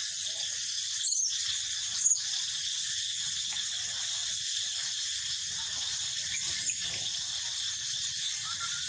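A baby macaque giving a few short, high squeals, the loudest about one and two seconds in, over a steady high drone of insects.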